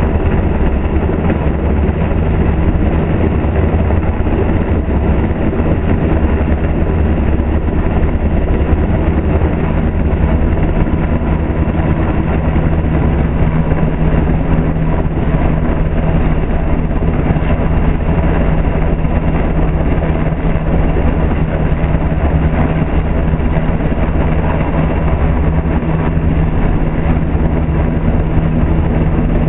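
Coast Guard MH-60 Jayhawk helicopter hovering low overhead: a loud, steady rumble of rotor and turbine noise with a steady low hum, unchanging throughout.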